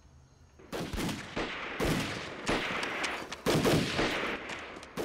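Sudden gunfire starting just under a second in: many shots in quick succession, coming in clustered bursts.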